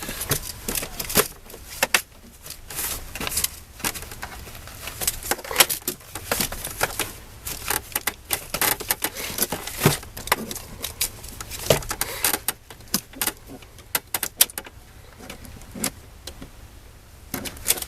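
Light clicks and metallic rattles, many of them at irregular intervals, of a tape measure and small metal parts being handled while measuring up a glove box latch.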